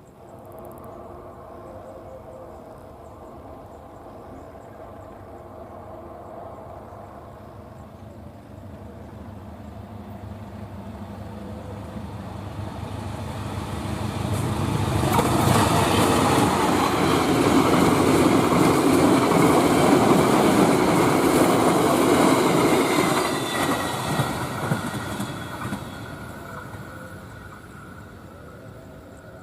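Passenger train approaching and passing at high speed on straight track, growing steadily louder, loudest for several seconds around the middle, then fading away.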